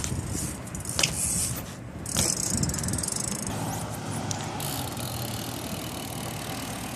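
BMX bike being ridden on pavement: two sharp knocks, then a second of fast ticking from the coasting rear hub, then steady tyre rolling noise.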